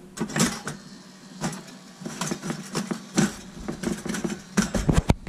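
Thick slices of bread being handled and pushed into the slots of a stainless steel toaster: irregular knocks, scrapes and clicks against the metal, with a low steady hum underneath.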